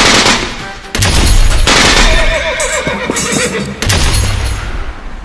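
Three deep, heavy hits, at the start, about a second in and about four seconds in, and between them, about two seconds in, a horse whinnying in a wavering, falling call.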